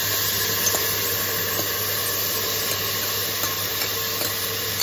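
Wet boiled urad dal and rajma sizzling in hot desi ghee in a steel pressure cooker: a steady hiss with a low hum underneath, and a few faint clicks from a steel ladle scraping the beans out of a glass bowl.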